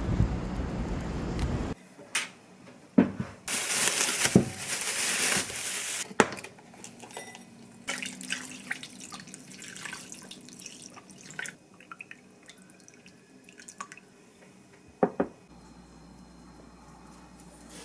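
Wind buffeting the microphone for the first couple of seconds. Then, in a kitchen, water runs for about two seconds, followed by sugar water poured over raw pork in a glass bowl, with a few clinks and knocks of kitchenware.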